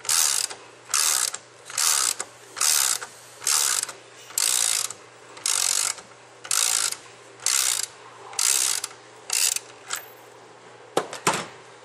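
Socket ratchet clicking in repeated strokes, a little under one a second, as the 5/8 socket unscrews a spray gun's fluid inlet fitting; the strokes stop about three quarters of the way through, and a couple of sharp clicks follow near the end.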